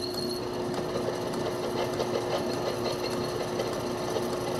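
Small metal lathe running steadily with a constant hum and a rattly mechanical whir, while a high-speed-steel tool bit takes a light pass of about five thousandths on an A2 tool steel part.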